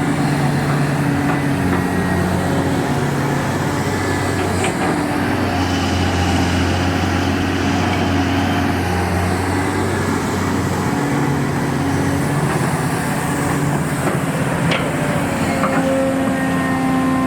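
Excavator's diesel engine running steadily, its pitch stepping up and down as the load changes, with a few sharp knocks.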